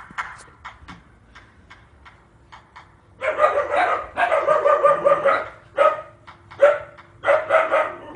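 A dog barking loudly in a run of drawn-out barks and yelps, starting about three seconds in and coming in repeated bursts; before that only a few faint taps.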